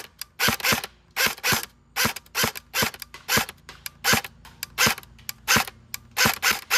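Airsoft Scar-L electric gun firing on semi-auto: single sharp shots in quick succession, about two to three a second, each a gearbox cycle. Its stock motor on a 7.4 V LiPo is, to the owner, sluggish and slow.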